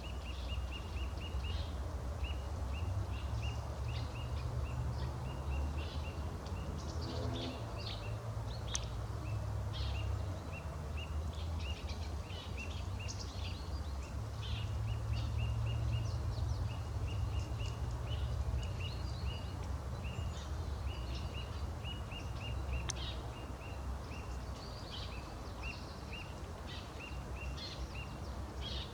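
Wild songbirds calling: one bird repeats a short, high chirp several times a second without pause while others add scattered higher calls and song. A steady low rumble runs beneath them.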